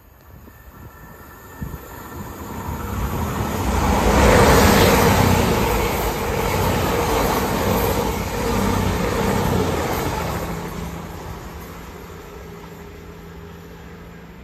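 CrossCountry Voyager diesel-electric multiple unit passing through the station at speed without stopping. The rush of the train builds over a couple of seconds, is loudest about four seconds in, stays loud for several seconds as the coaches go by, then fades away, leaving a steady low engine hum near the end.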